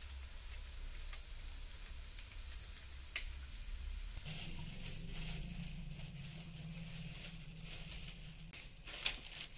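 Freshly fried grated coconut with sugar being scraped and stirred with a wooden spatula in the pan, with a faint sizzle and a few light knocks. A steady low hum runs underneath and shifts higher about four seconds in.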